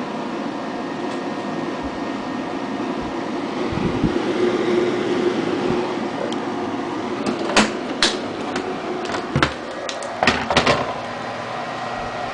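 Custom desktop PC's cooling fans running, a steady whir with a layered hum. About halfway through come several sharp knocks, about five in three seconds.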